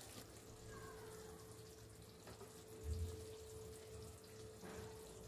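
Faint room noise with a steady hum, and a soft low bump about three seconds in.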